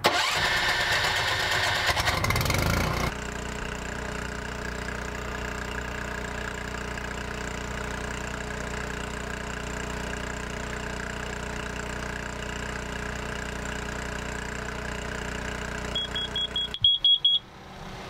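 Pickup truck engine starting and revving for about three seconds, then idling steadily. Near the end a carbon monoxide detector held at the exhaust beeps its alarm several times in quick succession, showing it picks up the exhaust's carbon monoxide.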